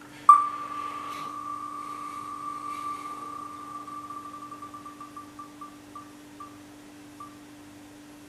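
Online spinning name-wheel ticking through laptop speakers as it spins. The ticks start so fast they blur into one tone, then slow into separate ticks further and further apart and stop as the wheel comes to rest.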